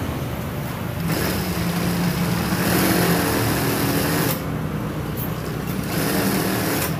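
Brother industrial lockstitch sewing machine running: a steady motor hum, with louder stretches of stitching from about a second in until past four seconds, and again near the end.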